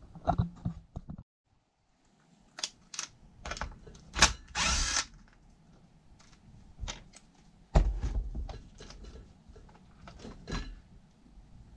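Hand work on an RC truck's rear wheel hub while taking the wheel off: scattered clicks and taps of tools against plastic and metal parts, with a short rasping burst about four and a half seconds in and a low thump near eight seconds.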